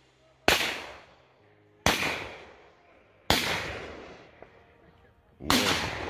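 Four shotgun shots, about one and a half to two seconds apart, each followed by a long fading echo.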